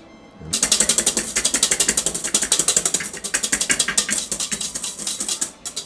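Wire balloon whisk beating egg whites by hand in a stainless steel bowl: rapid, even clicking and rattling of the wires against the metal. It starts about half a second in and stops just before the end, as the whites are brought toward soft peaks.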